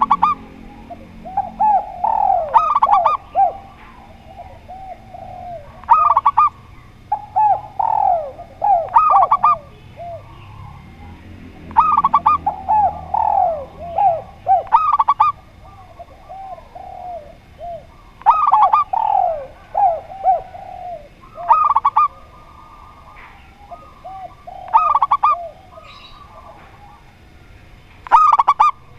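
Spotted dove and zebra dove cooing in repeated phrases every few seconds. Each phrase is a run of rolling, falling coos with a few sharper, higher notes.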